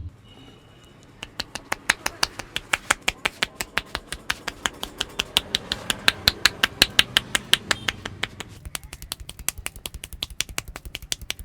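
A long, even run of sharp slapping clicks from a barber's hands working a head massage, about five a second. Near the end they come faster and softer.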